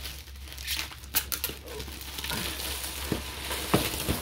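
Clear plastic shrink wrap being pulled off a large cardboard box, crinkling steadily, with several sharp snaps about a second in and again near the end.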